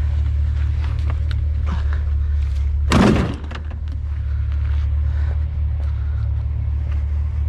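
One heavy thud about three seconds in, over the steady low hum of an idling vehicle engine.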